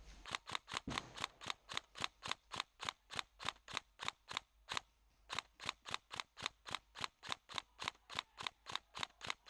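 Airsoft gun firing in steady semi-automatic shots, about four sharp cracks a second with one short pause midway, a long string of hits on a single opponent.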